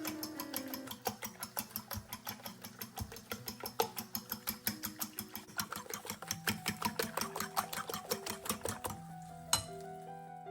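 Fast, even clicking or tapping, about six strokes a second, over soft background music; it stops about nine seconds in, followed by a single sharp knock.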